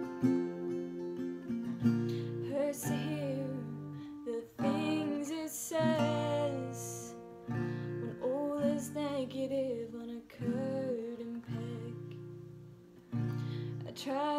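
Acoustic guitar strummed in a slow song, with a woman singing the melody over it in phrases.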